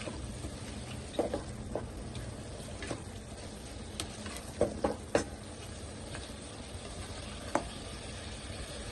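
Spatula stirring and scraping minced chicken, potatoes and spices in a kadhai, with irregular knocks against the pan, a cluster of the loudest around the middle, over a steady frying sizzle.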